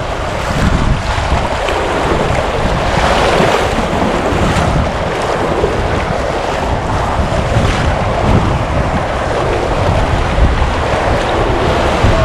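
River water rushing and splashing around the bow of an inflatable kayak running a shallow riffle into small standing waves, with wind buffeting the microphone as a low rumble.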